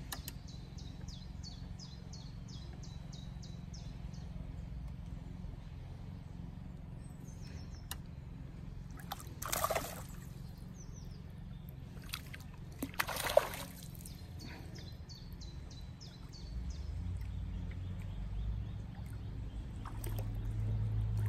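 Water splashing briefly twice, a few seconds apart, over a low steady rumble that grows louder near the end. A fast, high ticking runs at the start and again in the middle.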